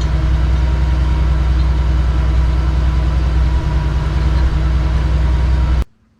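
An engine running steadily at idle, a deep even hum that cuts off suddenly near the end.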